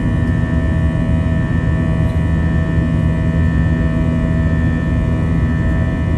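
Steady jet engine and airflow noise heard inside the cabin of an Airbus A321 in flight: a low rumble with a constant high whine and lower hums over it.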